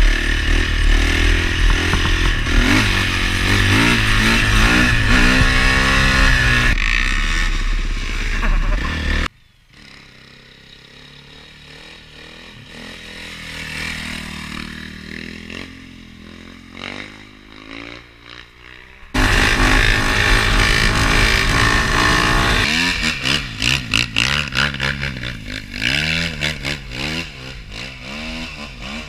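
Honda CRF450R four-stroke single-cylinder dirt bike engine revving hard and accelerating, with its pitch climbing repeatedly as it pulls through the gears. About nine seconds in it drops suddenly to faint for about ten seconds, then comes back loud, revving in short choppy bursts near the end.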